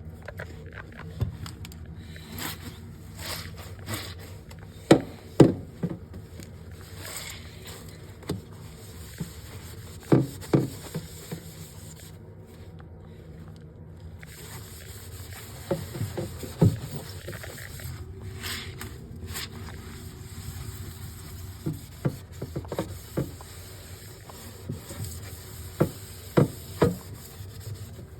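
Irregular knocks and clunks of hard objects being handled, with scraping and rubbing between them, over a steady low hum: the sounds of a fridge being emptied and cleaned.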